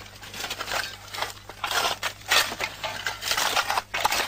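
Excavation digging: hand tools scraping and crunching into dry earth and stones in quick, irregular strokes, over a steady hum.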